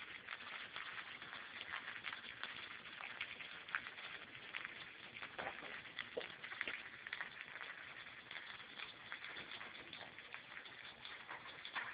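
Salmon fillet frying skin-side down in hot olive oil: a faint, steady sizzle full of fine crackles and pops as the skin sears and loosens from the flesh.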